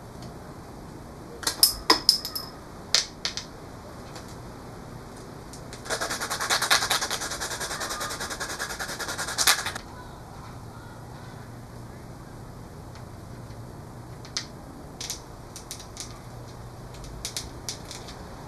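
Hand work on a cane dart shaft at a workbench: several sharp clicks and taps from tools and materials being handled, then about four seconds of rapid, steady rasping from a tool working the wood, and a few light taps near the end.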